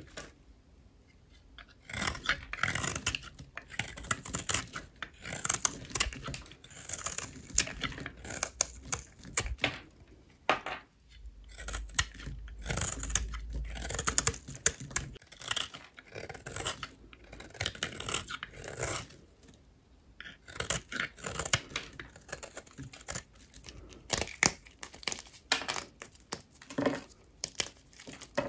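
A blade cutting through dry bar soap in long runs of crisp, scratchy crunching strokes, with brief pauses between runs.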